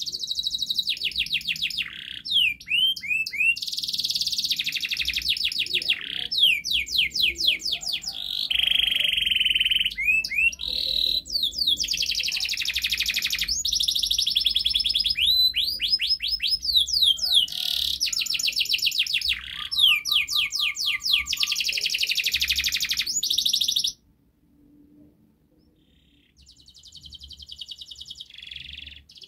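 Domestic canary singing a long, unbroken song of fast trills, rapid repeated notes and downward-sweeping whistles. The song stops about 24 seconds in, and after a short pause a fainter song starts again near the end.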